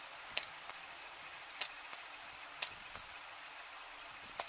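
Four pairs of sharp, small clicks, roughly a second apart, the two clicks in each pair about a third of a second apart, over a steady faint hiss.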